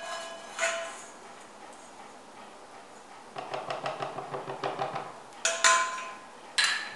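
Silicone spatula scraping and tapping out a nonstick pan, emptying fried garlic and seasoning into a glass mug of butter: a quick run of scrapes and taps a few seconds in. Near the end come two sharp clinks of the pan and utensils against glass and hard surfaces.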